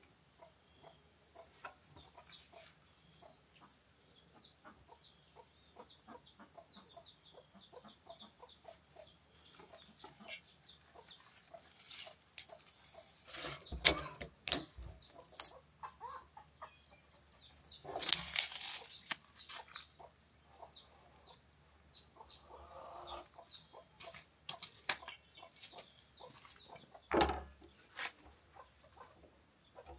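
Chickens clucking off and on in the background over a faint, steady high-pitched whine. Three louder short bursts of handling noise against a plastic drum come as it is measured with a tape measure and marked.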